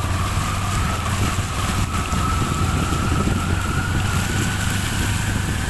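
Auto-rickshaw engine running from inside the moving vehicle as it drives through shallow floodwater: a steady low hum with a whine that slowly rises in pitch, over a constant rushing noise.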